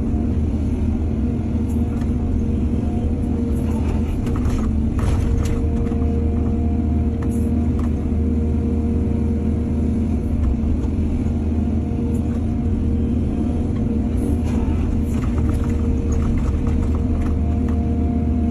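Excavator's diesel engine running steadily under load, with bursts of clanking and scraping from its bucket working soil about a quarter of the way in and again late on.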